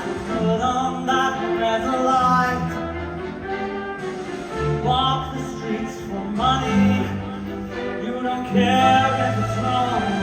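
Live music from a bowed string ensemble playing a slow, dramatic passage with sustained, swelling notes.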